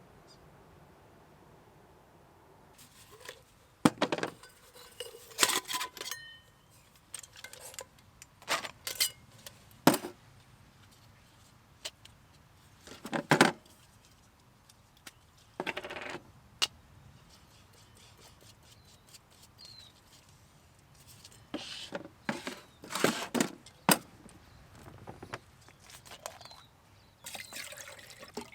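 Camp cookware and a mug being handled to make coffee: scattered sharp clinks, clatters and knocks of metal and crockery, with quiet gaps between them.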